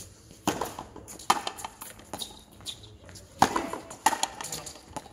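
Frontenis rally: the rubber ball struck by strung rackets and smacking off the court's front wall, a series of sharp echoing smacks about once a second, the loudest about three and a half seconds in.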